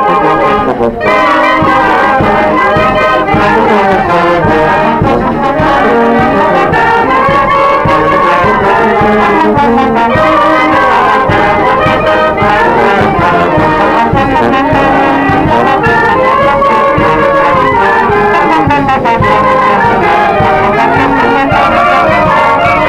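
Youth wind band (banda filarmónica) playing a tune together: clarinets, saxophones, trumpets and a sousaphone, loud and continuous, with a brief break about a second in.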